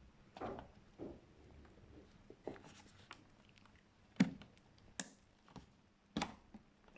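Hands handling computer parts during a PC build: scattered light clicks and taps with faint rubbing. The sharpest click comes a little past four seconds in.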